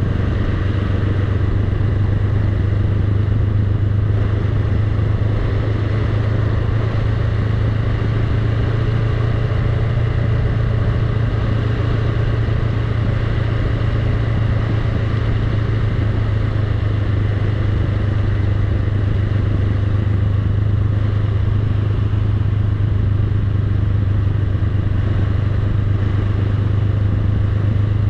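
Honda Rebel 500's parallel-twin engine running steadily as the motorcycle rolls slowly downhill, a constant low hum with no changes in pace.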